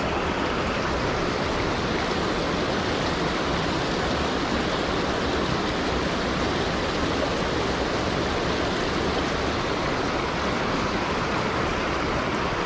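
Small river's water rushing steadily, a constant even roar of flowing current.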